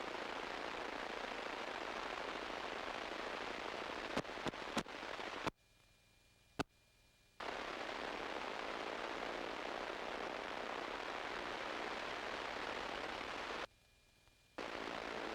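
Steady hiss of an open aircraft radio/intercom channel with no one talking, cutting off abruptly twice for a second or two as the channel closes, with a few sharp clicks a little before the first cut-off.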